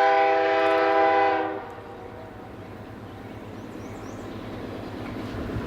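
Via Rail F40PH-2 diesel locomotive's air horn sounding one loud chord that cuts off about a second and a half in, followed by a steady low rumble.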